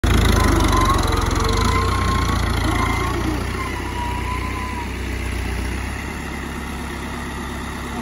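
Diesel farm tractor engine running as the tractor drives over a pile of chopped corn silage to pack it down. It is loudest at the start and eases off, with the low rumble dropping about six seconds in.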